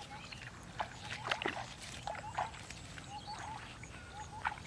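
Shallow paddy-field water sloshing and splashing in irregular bursts, with faint short chirps repeating in the background.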